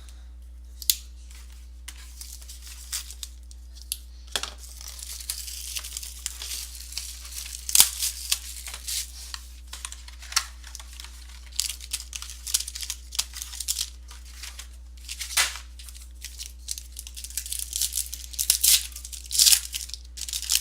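Trading card packs and box packaging being torn open and handled: wrappers tearing and crinkling, with scattered sharp clicks of cardboard and cards, over a faint steady electrical hum.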